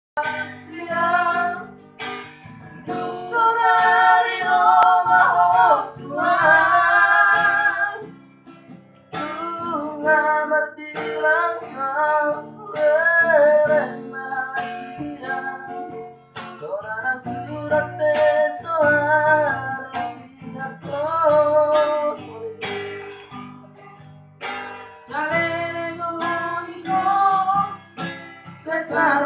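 A young child singing a song in a high voice with acoustic guitar accompaniment.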